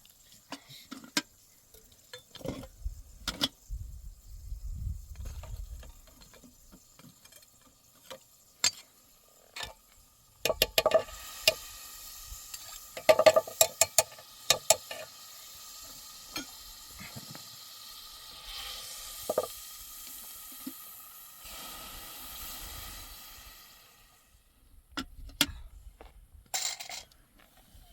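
Food sizzling in a pan, with the clinks and scrapes of a utensil stirring against the metal, busiest about halfway through.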